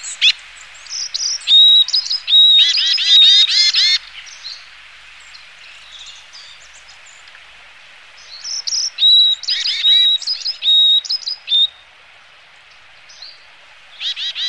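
Varied tits calling: quick runs of short, downward-bending notes mixed with thin, steady high whistles. The calls come in bouts: one in the first four seconds, another from about eight and a half to twelve seconds in, and a new run starting just before the end.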